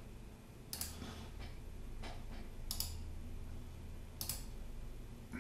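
Computer mouse clicking: three short, faint clicks a second and a half to two seconds apart, over a low hum.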